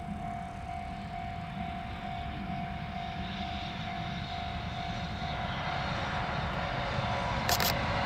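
Japanese level-crossing warning bell ringing in a steady repeated pattern, with the low rumble of an approaching freight train growing louder toward the end. There is a short high hiss near the end.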